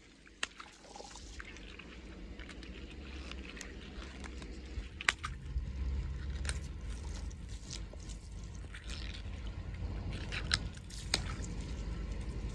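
Long water-filled rubber balloons being twisted and squeezed by hand, with water sloshing and dripping and the wet rubber squishing. A few sharp clicks stand out, and a low rumble rises from about four seconds in.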